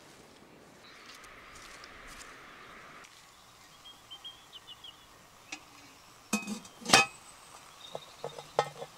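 Cast-iron Petromax Dutch oven lid, loaded with hot coals, being set onto the pot with a metal lid lifter. There is a light clink, then several loud ringing metal clanks about six to seven seconds in, and a few more clinks near the end.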